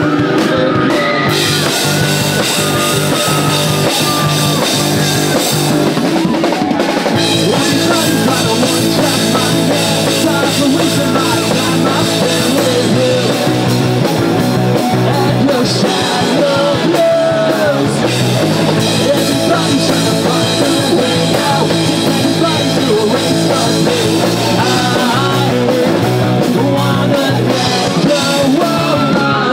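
Live rock band playing: electric guitars, bass guitar and a drum kit, loud and continuous.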